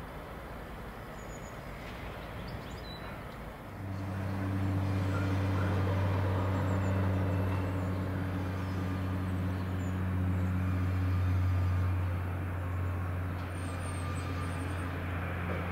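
Freightliner Class 66 diesel locomotive approaching with a container train. A steady low drone from its two-stroke V12 engine comes in sharply about four seconds in and holds, over a steady rushing noise.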